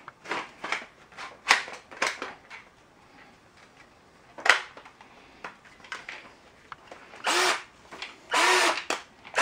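Plastic handling knocks and clicks as an 18-volt battery pack is pushed onto a Black & Decker cordless drill, with one sharp click about halfway through as it latches. Near the end the drill's motor spins up in two short bursts as the trigger is pulled, showing the drill runs on the borrowed higher-capacity battery.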